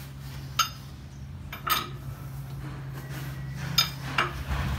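Lug wrench clinking on a wheel's lug nuts as they are tightened in a criss-cross order: four sharp metallic clinks, over a steady low hum.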